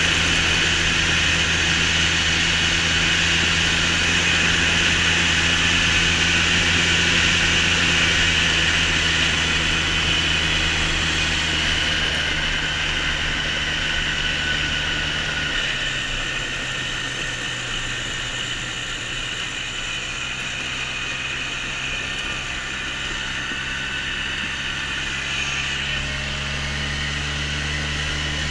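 An engine running steadily under a constant hiss. Its low hum drops in pitch about halfway through.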